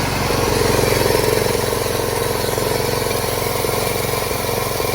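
Wheel Horse 212-5 garden tractor engine running steadily at idle.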